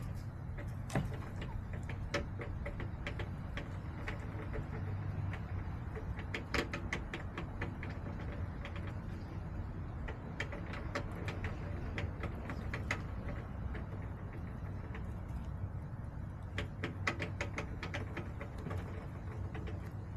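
Chickens pecking, giving sharp, irregular taps that often come in quick clusters, over a steady low rumble.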